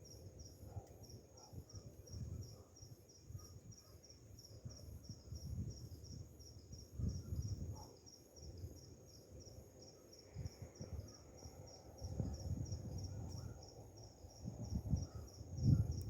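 Insects chirping in a steady high pulsed rhythm, about four chirps a second, over a continuous high trill. Irregular low rumbles and thumps come and go beneath, loudest about seven seconds in and near the end.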